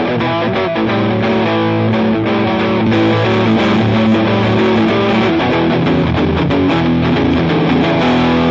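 Electric guitar (a custom-built SG) played through a JOYO R21 overdrive pedal with its boost switched on and the drive at its middle setting: mildly overdriven chords held and changed every second or so.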